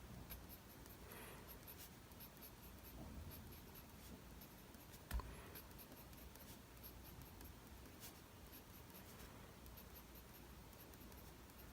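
Faint scratching of a mechanical pencil drawing short strokes on paper, with a slightly louder tick about five seconds in.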